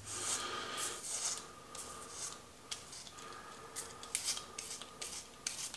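Multi-blade cartridge razor scraping over a lathered scalp in a run of short strokes, each a quiet rasp, a "za, za, za": the sign that the blades are meeting and cutting stubble.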